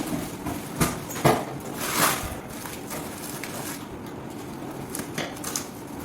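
A few short knocks and scrapes from handling the boxed sink and its packaging, clustered in the first two seconds with a couple more near the end.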